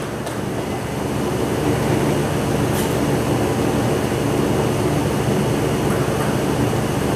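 Steady low hum of air conditioning filling the hall, growing a little louder about a second in, with one faint click near the middle.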